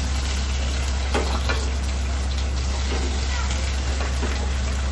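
Hot oil sizzling steadily in a frying pan after bell peppers were tossed in it on a high flame, over a low steady hum, with a few faint clinks as the vegetables are moved onto a plate.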